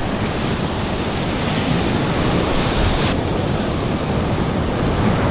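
Small surf breaking and washing up the sand at the shoreline, a steady rushing wash.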